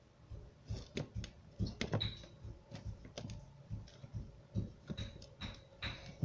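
Light, irregular clicks and taps of plastic Play-Doh toy kitchen pieces being handled, a few with a brief high squeak.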